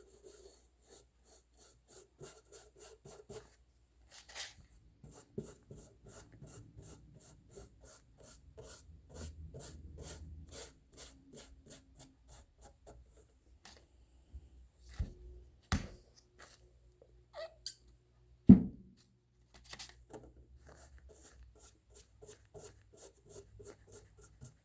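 Paintbrush scraping across a plastic jug in short repeated strokes, about three a second, with a few louder knocks from the jug being handled; the loudest comes about three quarters of the way through.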